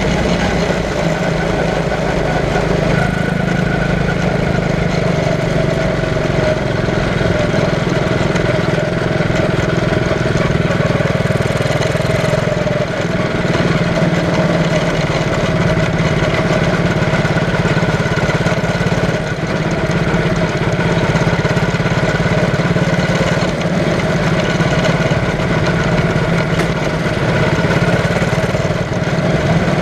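Quarter midget race car's small single-cylinder engine running at a steady, moderate speed, heard from on board the car.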